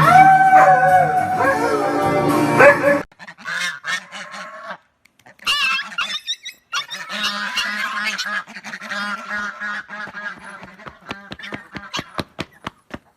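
Background music for about three seconds, then an animal's repeated pitched calls, with short clicks scattered through.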